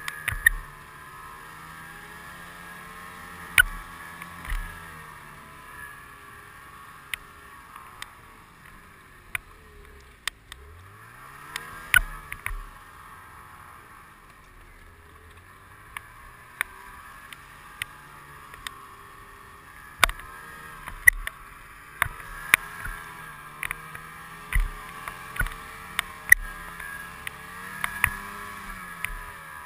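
Snowmobile engine running along a trail, its pitch rising and falling with the throttle. It drops low about ten seconds in, then climbs again. Frequent sharp knocks and clicks from jolts over the bumpy snow are heard throughout.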